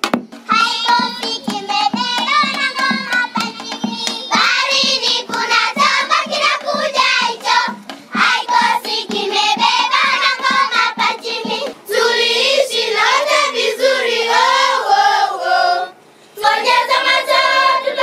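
Children singing together in chorus, with a rhythm of struck beats underneath. The singing breaks off briefly near the end, then starts again.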